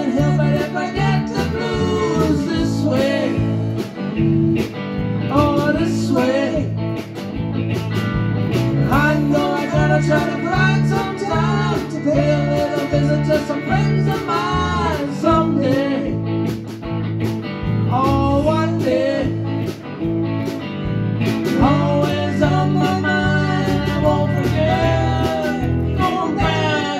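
A live band plays an instrumental blues-rock tune. A bass guitar holds low notes close to the microphone, a lead guitar plays a line full of bent notes above it, and a drum kit keeps time with frequent cymbal and snare hits.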